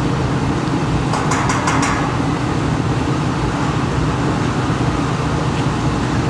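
Steady low rumbling background noise with a faint hum, and a quick run of a few sharp clicks about a second in.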